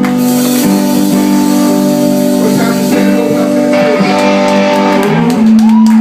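Live band music led by electric guitar, sustained chords ringing and changing every second or so, settling onto one held note near the end.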